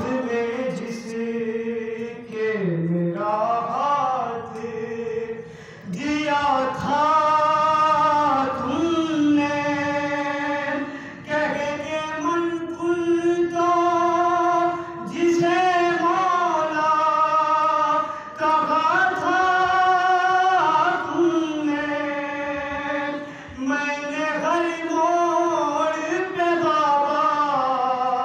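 A young man chanting an Urdu noha (Shia lament) into a microphone, unaccompanied: long melodic phrases of a few seconds each with held notes, broken by short breaths.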